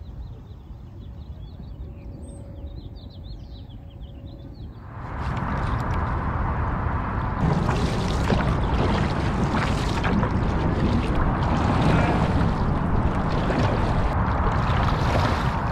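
Water rushing and splashing along the hull of a sprint canoe being paddled hard, heard from a camera at the bow, with the splash of the paddle strokes. It comes in about five seconds in. Before that there is only a quieter outdoor background with faint chirps.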